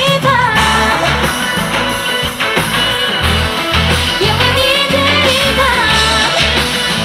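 Live rock-pop band performance: a woman singing lead into a microphone over a loud backing of drums, bass and guitars, played through the stage PA.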